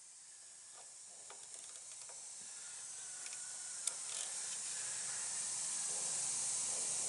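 A steady hiss that grows louder, with one sharp metallic click about four seconds in as a hex key seats in the rusted set screw of a mower engine's crankshaft pulley.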